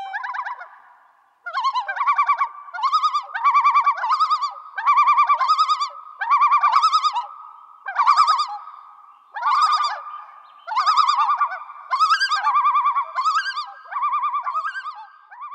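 A bird calling over and over: a dozen or so short, wavering, laughing phrases, each under a second, with brief gaps between them.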